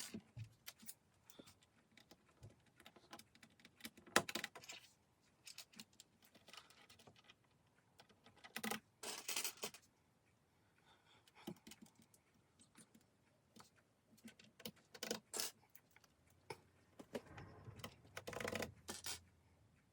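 Plastic keycaps clicking as they are pressed back onto an RK61 mechanical keyboard, in scattered small clicks with a few busier clusters of clatter.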